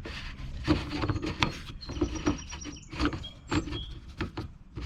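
Handling noises from the mower's fuel cap: a string of light clicks, knocks and rubbing as the cap is unscrewed and a sheet of plastic under it is pulled out.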